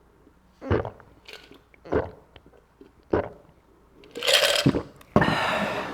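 A person gulping juice close to the microphone, three swallows a little over a second apart, then two louder breathy sounds in the last two seconds, the second starting suddenly.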